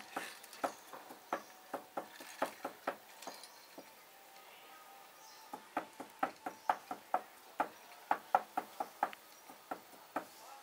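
Chopping on a wooden chopping block: a run of sharp knocks about two or three a second, a pause of about two seconds near the middle, then a quicker run of strokes.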